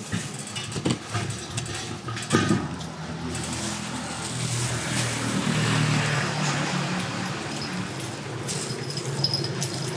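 Cleaver chopping grilled pork on a wooden board, with a few sharp knocks in the first few seconds, the loudest about a second in and near two and a half seconds. A motor vehicle's engine hums steadily from about four seconds on.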